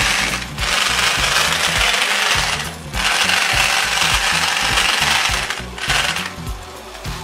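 Electric drill running in several bursts with short breaks between them, the longest about two and a half seconds.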